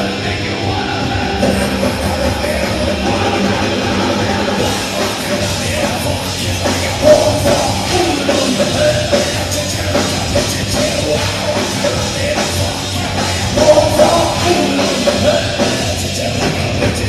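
Live rock band playing loud, with distorted electric guitars, bass and drums and a singer shouting the vocals.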